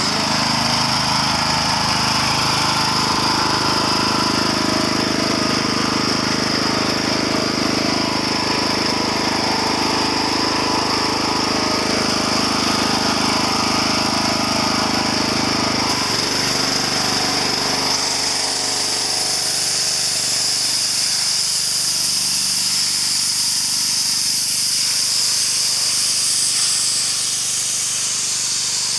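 Pressure washer running: the motor's steady hum under the hiss of the high-pressure spray. About 16 s in the motor hum drops away while the spray hiss carries on and grows brighter.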